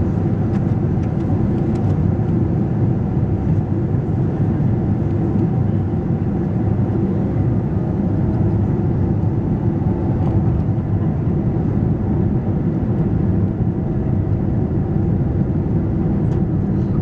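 Steady cabin noise inside a Boeing 777-200ER on approach with the flaps extended: an even, low rumble of its GE90 engines and the airflow past the wing.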